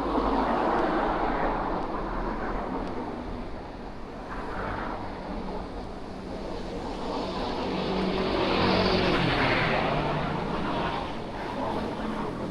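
Street traffic: cars passing close by one after another, each swelling and fading, with the loudest pass about nine seconds in.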